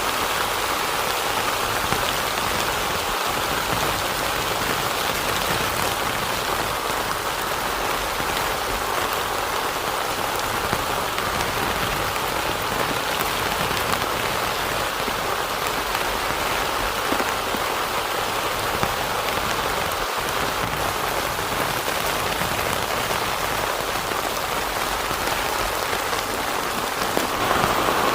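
Heavy rain falling steadily on a tent, an even patter with no let-up.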